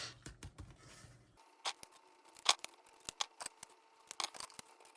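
Paper bills and a plastic or paper envelope being handled: a string of short, sharp, irregular clicks and light rustles as cash is tucked into a pocket.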